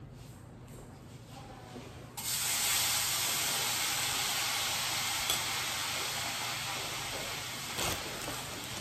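Grilled cheese sandwich frying in a hot pan on a gas stove: a sizzle that starts suddenly about two seconds in and fades slowly, with a brief knock near the end.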